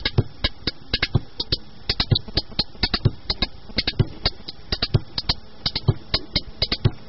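Instrumental break of a live music performance: hand percussion playing a fast, even pattern of sharp strikes, several a second, over a deeper drum beat about once a second, with no singing.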